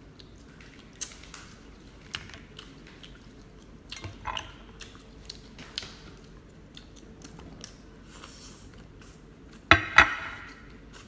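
King crab being eaten at the table: scattered small clicks and clinks of shell and utensils with chewing, and two loud sharp clacks in quick succession near the end.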